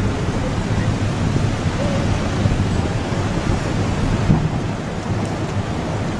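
Steady, rough roar of heavy storm surf and wind, with a deep rumble underneath.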